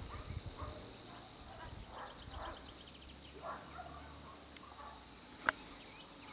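Faint, scattered animal calls over a steady high whine, with a single sharp click about five and a half seconds in.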